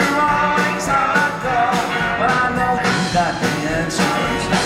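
Live swing band playing: saxophones over drums, upright bass, piano and guitar, a steady full-band passage with no lyric sung.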